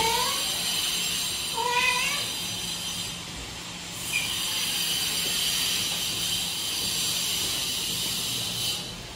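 A cat meowing twice in quick succession, short calls that bend in pitch, with a faint third chirp a few seconds later, over a steady hiss.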